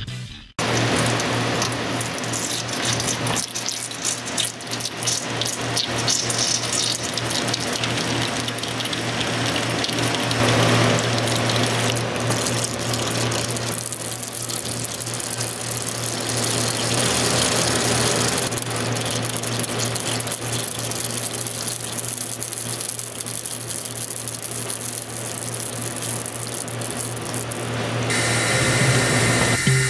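Small-hole EDM drill burning through a metal part under a flushing water jet: a steady hiss and splash of the spraying water over a low, even machine hum.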